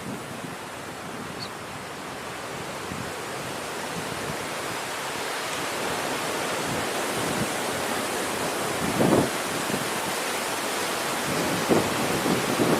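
Wind buffeting the microphone outdoors: a steady rushing noise that slowly grows louder, with low gusty thumps about nine seconds in and again near the end.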